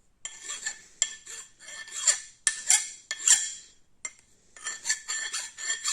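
Hand file being drawn across the steel end of a generator crankshaft in repeated scraping strokes, about one and a half a second, with a metallic ring. The file bites, showing the shaft steel is not very hard.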